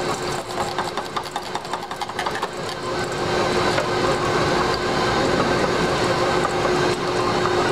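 KitchenAid Commercial stand mixer running steadily, its paddle beating butter-and-flour scone dough as liquid is added, with a clatter of knocks over the first few seconds.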